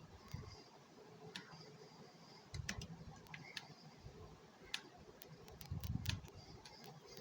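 Keys of a Royal Kludge RK84 mechanical keyboard clicking: a dozen or so scattered, irregular keystrokes rather than steady typing, with two brief low thuds, about a third of the way in and near the end.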